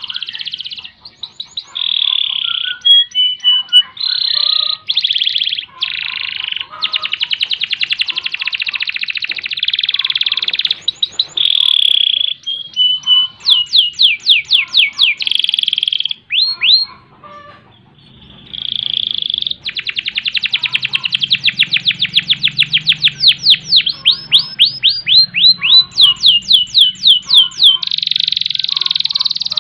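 Domestic canary singing a long, loud song of fast rolling trills and rapid repeated notes, with runs of quick falling whistled sweeps. It pauses briefly about two-thirds of the way through, then resumes.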